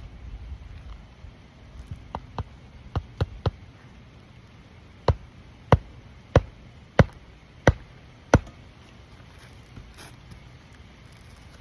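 Hammer nailing down a replacement asphalt roof shingle: a few light taps, then six hard, evenly spaced strikes about two-thirds of a second apart.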